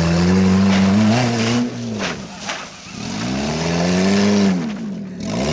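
Daihatsu sedan's engine revving hard as the car spins in circles on loose gravel. The revs are held high, drop away about two seconds in, climb again, and fall near the end. Tyres scrabble and gravel sprays underneath.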